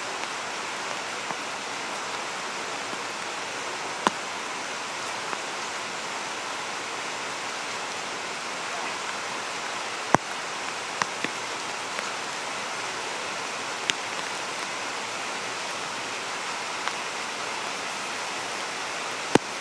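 Steady rushing of creek water, with a handful of sharp clicks or knocks scattered through it.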